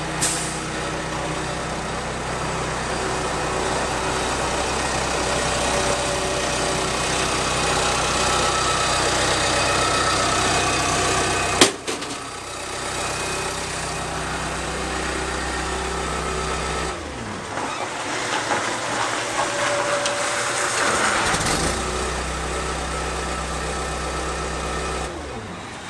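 A 1995 John Deere 450G crawler dozer's diesel engine running steadily after a cold start, with one sharp click about halfway through. In the last third the engine note twice dips and falls in pitch as its speed changes.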